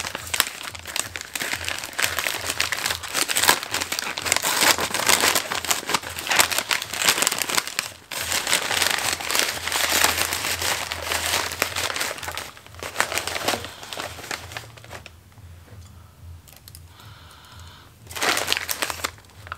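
Paper packaging crinkling and rustling as a parcel is handled and pulled open by hand, in dense bursts for most of the first twelve seconds. It then goes quieter, and a short burst of crinkling comes near the end as the wrapping is cut with scissors.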